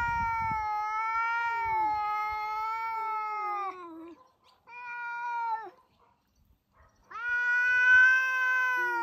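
Domestic cat caterwauling in a territorial standoff with another cat: long, drawn-out yowls, the first lasting about four seconds and bending down at its end, a short one near the middle, and another starting about seven seconds in.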